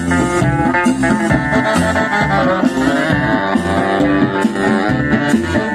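Live band playing an instrumental passage: electric guitar to the fore over upright bass and drums, with a steady beat.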